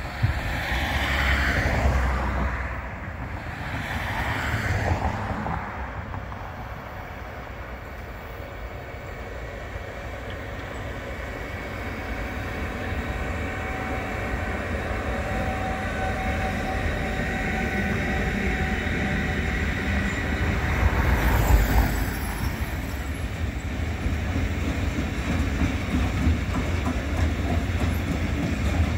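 DB Cargo Siemens Vectron electric locomotive hauling a freight train of covered wagons and tank cars, approaching and passing. The rolling noise builds with a steady whine, is loudest a little past two-thirds of the way through as the train passes closest, then the wagons roll by with a steady rumble and clatter of wheels on the rails. Two brief whooshes rise and fall in the first few seconds.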